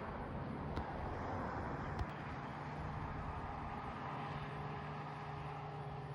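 Steady distant engine drone outdoors, with a low even hum coming in about two seconds in and two faint clicks.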